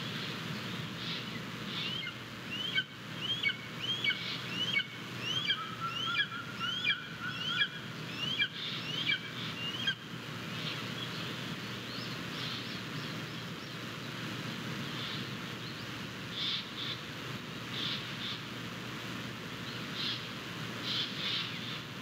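A bird calling a run of short rising notes, about two a second, for some eight seconds, followed by scattered short high chirps, all over a steady outdoor hiss.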